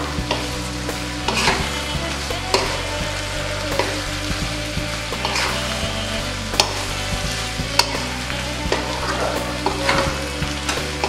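Tempe gembus cubes with chillies stir-fried in a non-stick wok: steady sizzling, with a spatula scraping and knocking against the pan about once a second as the food is turned over.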